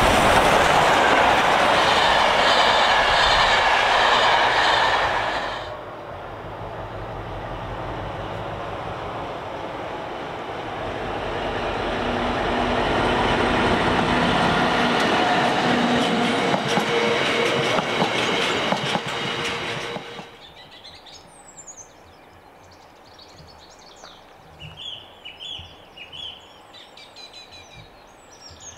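Passenger coaches of a charter train rolling past with wheel clatter, then a diesel freight train of hopper wagons running past, louder in the middle. Both give way suddenly to birdsong over a quiet background.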